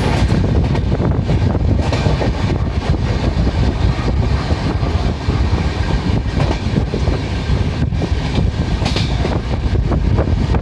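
Humsafar Express LHB passenger coaches running along the track: a steady, loud rumble of wheels on rail with frequent irregular clicks and knocks from the rails and joints, heard from on board the moving train.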